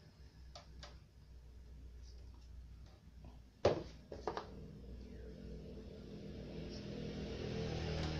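Hand tools clicking and tapping against a TV's circuit board and chassis, with one sharp knock a little over three and a half seconds in and a few lighter clicks just after. A low rumble swells steadily in the background over the last few seconds.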